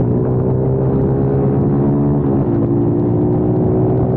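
Kayo TT 140 pit bike's 140 cc single-cylinder four-stroke engine running under load at a fairly steady pitch, with a short dip in pitch about two and a half seconds in.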